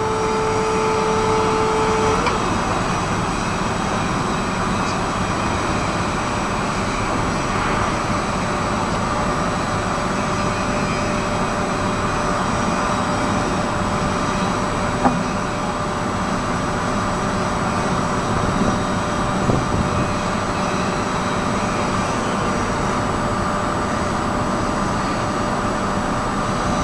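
Three-wheel electric forklift running: a steady whine stops about two seconds in, leaving a constant hum and hiss as the truck lowers its forks and drives.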